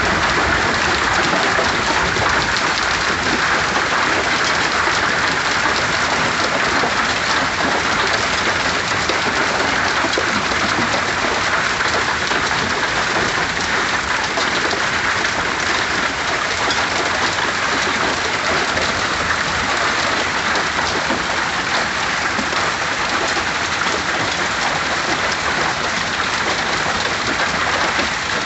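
Hail and heavy rain pelting down in a steady, dense clatter of countless small impacts.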